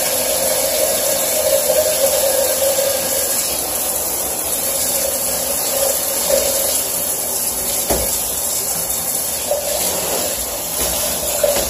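Handheld shower head running, water spraying steadily into a bathtub to rinse out a plastic pancake batter dispenser, with one knock about eight seconds in.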